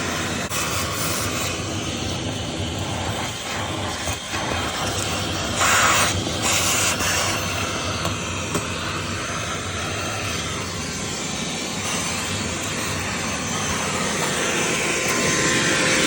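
Armor All VO405P wet/dry shop vacuum running steadily while its hose sucks dust and dirt off a truck floorboard, with two brief louder rushes about six and seven seconds in.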